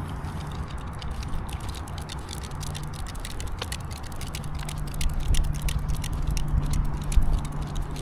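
Low road-traffic rumble from a busy street, swelling about five seconds in as vehicles draw near, with rapid light ticking over it.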